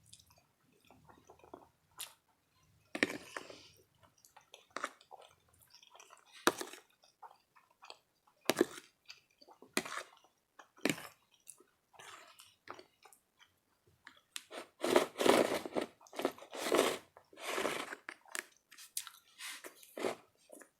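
Close-miked chewing and crunching of food, with scattered sharp mouth clicks and a run of louder bursts near the end.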